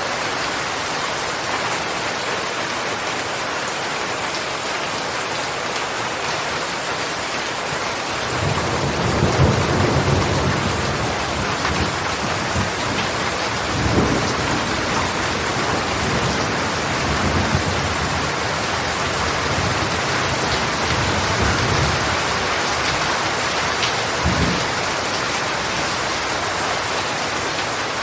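Steady heavy rain. About eight seconds in, thunder starts rumbling low beneath it and keeps rolling on and off, with sharper claps near the middle and near the end.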